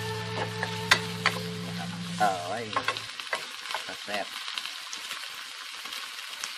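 Sliced pork, onion and chilies sizzling in a nonstick wok while a wooden spatula stirs and scrapes, with sharp knocks of the spatula against the pan. The stirring stops about three seconds in, and the frying sizzle goes on more quietly.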